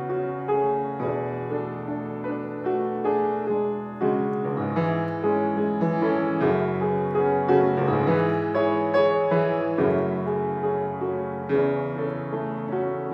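Yamaha grand piano played solo: sustained chords under a melody, the notes changing every half second to a second.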